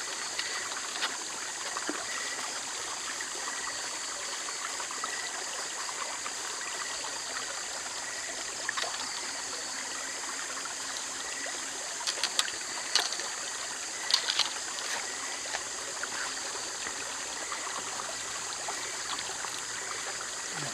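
Shallow rocky stream running steadily, with a few sharp clicks about two-thirds of the way through.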